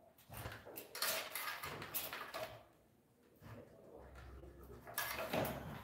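Hand work in ceramic floor tiling: a tile and hand tools scraping and clinking against the sand-and-cement bed and the laid tiles, in two spells of clatter, the second near the end.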